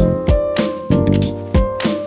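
Instrumental background music: held chords over a drum beat.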